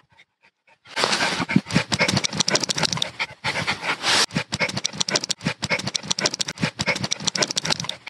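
Coton de Tulear puppy panting quickly and hard, starting about a second in.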